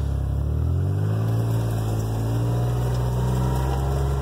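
Engine of a side-by-side utility vehicle running, its pitch rising over about the first second as the vehicle gets moving, then holding steady.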